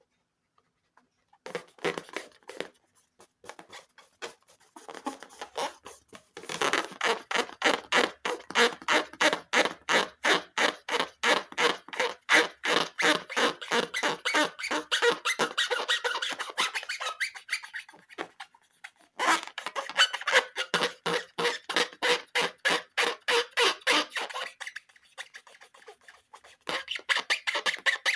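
Rubber balloons being rubbed by hand, giving long runs of rapid rubbery squeaks that stop briefly a couple of times.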